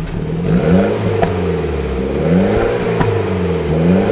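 BMW 116i's turbocharged 1.6-litre four-cylinder revved repeatedly while standing, its pitch rising and falling about three times. The active exhaust's vacuum valve is open, giving the loud tuned exhaust sound rather than the quiet stock one.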